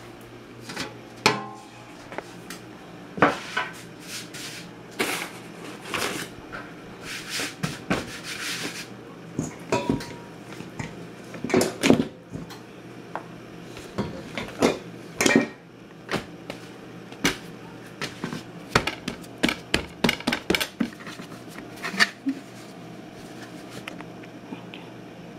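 Kitchen clatter: dishes, utensils and containers knocked and set down on a counter in a run of sharp, irregular knocks and clinks, with a couple of seconds of rustling about seven seconds in.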